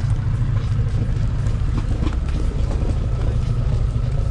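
Boat engine running steadily: an even, low rumble.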